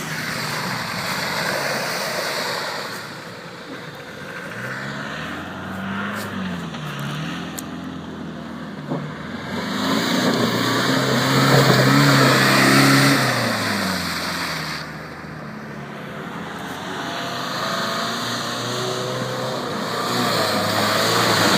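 A 4x4's engine revving up and down as it drives off-road, loudest about ten to thirteen seconds in.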